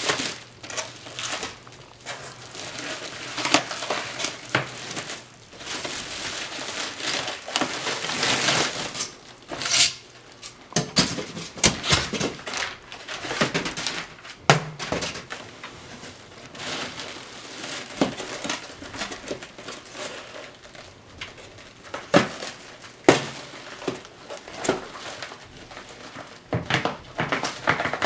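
Packing material being handled and pulled apart during unboxing: irregular rustling and crinkling, with scattered sharp clicks and knocks.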